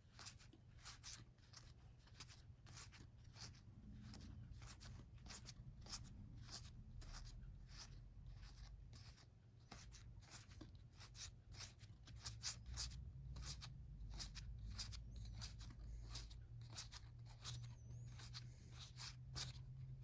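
Faint crinkling and rustling of board-game card decks being unwrapped and handled: many small, irregular crackles and ticks.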